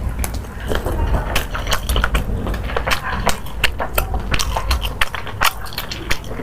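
Close-miked eating: chewing and mouth smacks on food, a dense run of sharp, irregular wet clicks and crackles.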